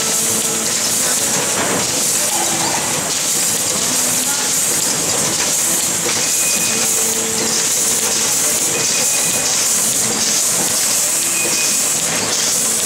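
Potting-line machinery and pot conveyor running: a loud, steady hiss with a few brief high tones here and there.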